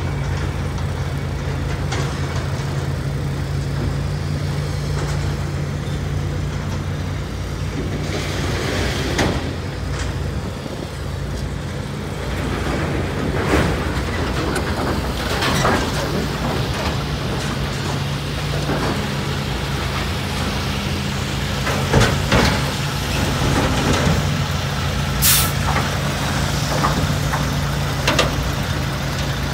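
Heavy diesel machinery running steadily, the engines of an excavator and a roll-off truck, with scattered clanks and knocks of metal and debris. There is one short, sharp hiss about 25 seconds in.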